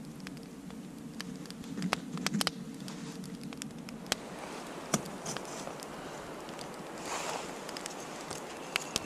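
Small wood fire burning in a stainless steel twig stove under a kettle, crackling with scattered sharp pops and clicks over a steady low hiss.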